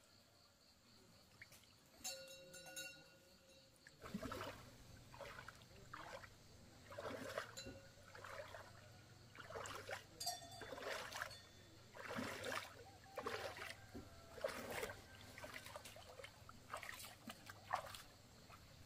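Water splashing in short repeated bursts, about one a second, beginning a few seconds in over a faint low steady hum.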